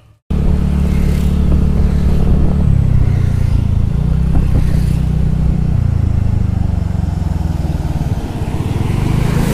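Motor scooter being ridden on a road: its engine running, the pitch shifting a few times as the speed changes, with wind and road noise over it.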